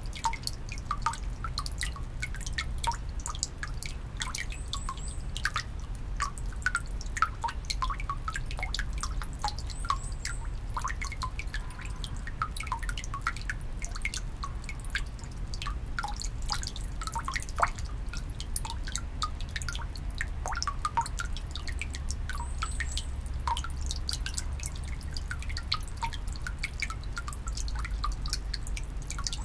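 Water dripping and splashing into the basin of a Shinto shrine's temizuya purification fountain: many quick, irregular drips.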